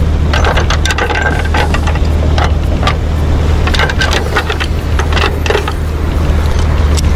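Flatbed tow truck's engine idling with a steady low hum, under irregular metallic clicks and clanks of a ratchet tie-down strap and its hooks being fastened and tightened around a car's wheel on the steel deck.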